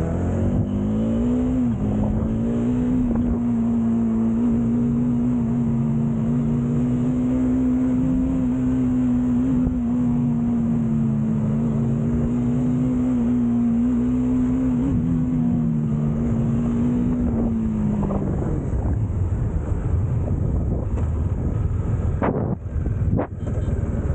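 Bajaj Dominar 400 single-cylinder motorcycle engine pulling hard, its pitch rising over the first two seconds, then held at a steady high speed for about sixteen seconds before easing off, with wind rushing past. A few sharp clicks come near the end.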